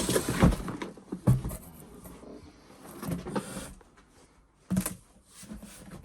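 Rustling and a few light knocks from pressure washer parts and packaging being handled, with short quiet gaps between.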